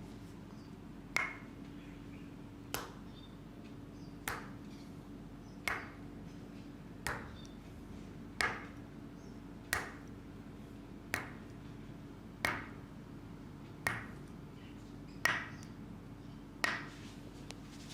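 A hard object tapped at a slow, even pace, about once every one and a half seconds, twelve times. Each tap is a sharp ping with a short ring, over a steady low hum.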